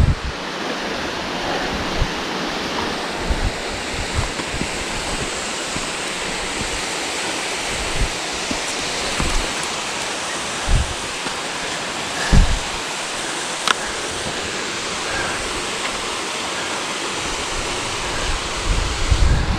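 Steady rush of falling water from Rancheria Falls, with occasional short low thumps on the microphone, the loudest about twelve seconds in.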